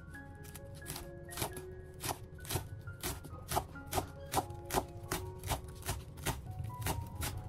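Knife chopping on a cutting board in a steady rhythm of about three strokes a second, getting stronger from about a second in, over soft melodic background music.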